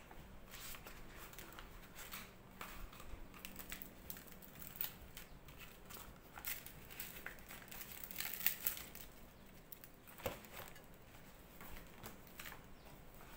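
Large fresh leaves rustling and crinkling as they are folded by hand around a portion of rice, a run of soft crackles with a few louder ones past the middle.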